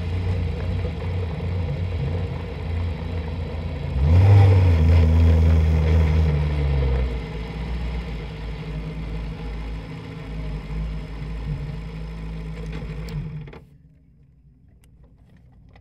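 Formula Renault 2.0 race car's four-cylinder engine running at low revs, with a brief rise in revs about four seconds in. Near the end the engine is switched off and cuts out suddenly as the car comes to rest.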